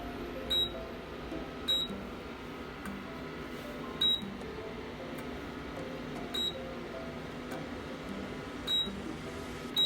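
Portable induction cooker beeping: six short, high single beeps, one to two and a half seconds apart, over a faint steady hum. This is its error signal that the cookware on it is not magnetic and so is not detected.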